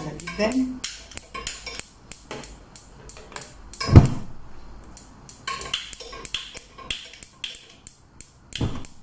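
Repeated sharp clicks of a handheld piezo gas lighter being sparked at a gas stove burner, with a louder thump about four seconds in and another near the end.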